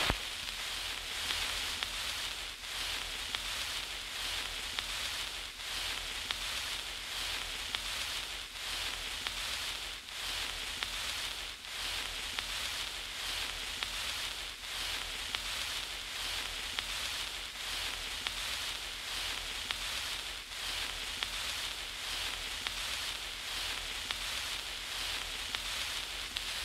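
Steady crackling hiss with frequent small clicks over a low steady hum.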